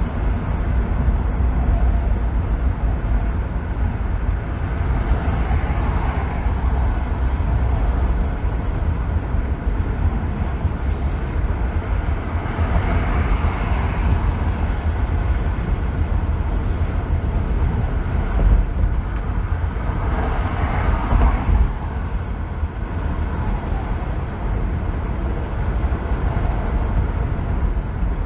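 A car driving on a freeway: steady tyre and road noise over a deep rumble, with a few swells that come and go, around 6, 13 and 21 seconds in.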